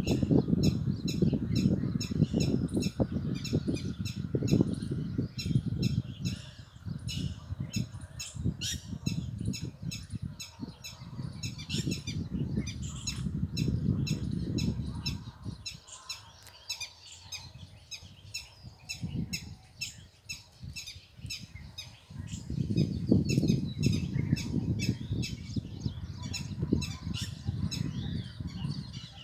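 Parrot calling in a rapid series of short, high calls, a female calling to her chick. Under the calls is a low rumbling noise, heaviest in the first half and again about three-quarters of the way through.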